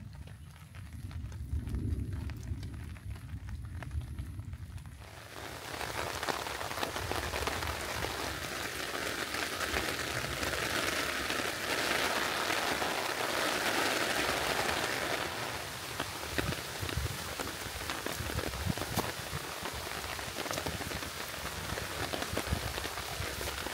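Low rumble of thunder for the first few seconds, then rain that comes in suddenly about five seconds in and falls steadily on a surface, heaviest in the middle.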